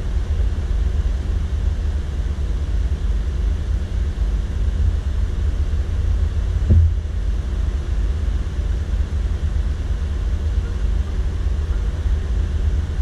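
Steady low rumble of a vehicle on the move, with a single short thump about seven seconds in.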